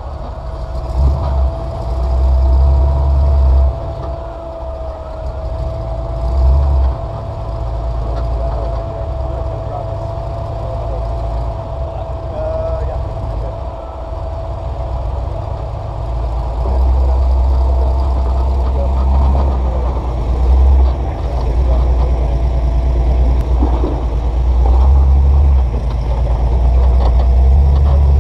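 Off-road rock crawler's engine running at low revs, with repeated surges of throttle as it crawls over rock ledges. A thin steady whine runs under it for much of the time.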